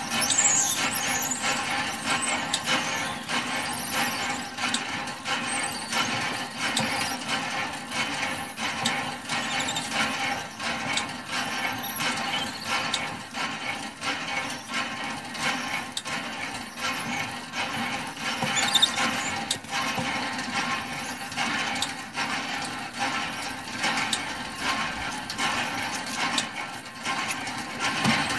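Hand pump being worked by its handle, squealing and clanking in a steady rhythm with each stroke as it draws water.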